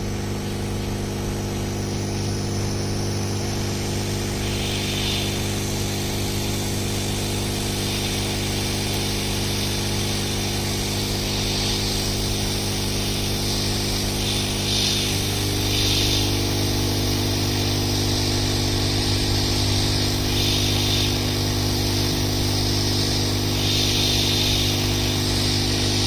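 Steady electric motor hum, typical of a hot air rework station's blower, with its pitch shifting slightly about halfway through and short bursts of hiss now and then.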